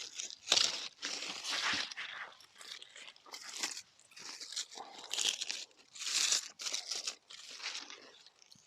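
Irregular crunching and rustling in short bursts, loudest in the first two seconds and again around the middle, dying away near the end.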